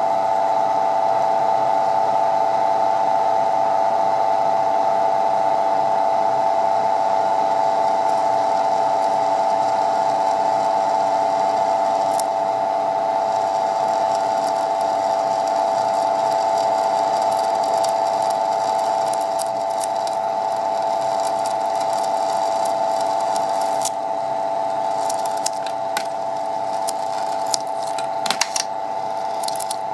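Maja flake ice machine running: its Bitzer Type 1 open-drive refrigeration compressor on a 750 W single-phase motor and the drum drive give a loud, steady drone. Near the end, crackling clicks join in as ice freezing on the cold drum starts to break off at the scraper as flakes.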